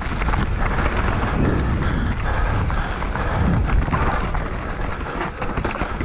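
Canyon Strive enduro mountain bike descending a rough trail at speed: wind buffeting the camera microphone, tyres rolling over dirt and rocks, and the bike rattling in quick, irregular clicks.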